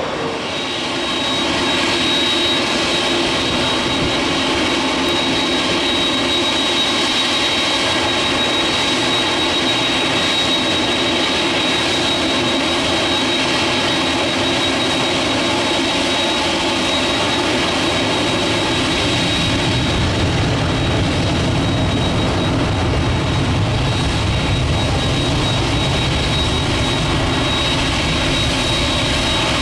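Boeing 747-8 freighter's four GEnx jet engines running at taxi power, a steady rumble with a high whine over it. The low rumble grows stronger about two-thirds of the way through.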